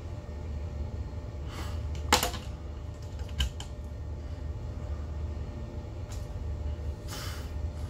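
A few sharp clicks and knocks, the loudest about two seconds in, with two short rustles, over a steady low drone from the motor yacht's engines running at manoeuvring speed.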